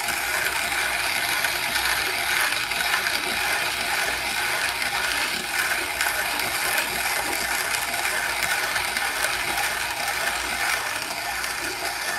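ROK Espresso hand grinder's conical burrs crushing coffee beans as its long lever arm is turned: a steady, dense crackling grind.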